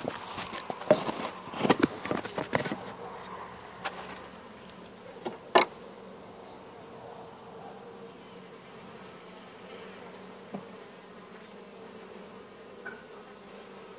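Honeybees buzzing over an open hive frame, a steady hum. There is a cluster of clicks and knocks in the first three seconds and a single sharp click about five and a half seconds in.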